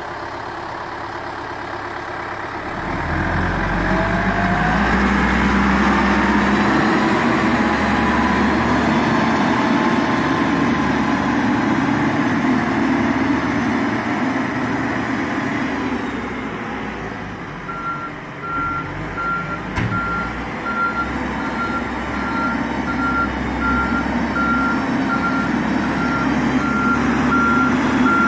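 Volvo BL71 backhoe loader's diesel engine running, growing louder about three seconds in as the machine drives off. From a little past halfway, its reversing alarm beeps steadily at a high pitch, the sign that it is in reverse.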